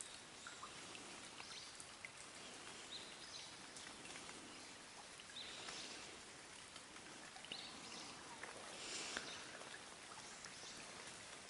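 Quiet pond ambience: a faint even hiss with scattered short, high calls of frogs at irregular intervals.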